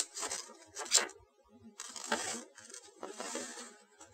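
Paper instruction-manual pages rustling as they are handled and turned by hand, in four or so short bursts about a second apart.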